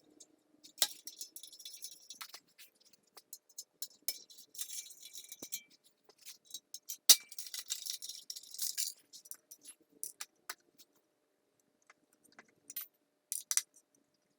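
Metal hand tools and exhaust hardware clinking and rattling as they are handled, with scattered sharp clicks and a couple of short scraping rustles, the loudest click about seven seconds in.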